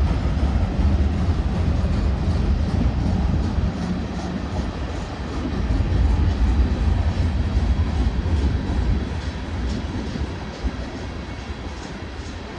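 Freight cars of a Union Pacific manifest train rolling past: a steady low rumble of wheels on rail with faint repeated ticks, easing off in the last few seconds.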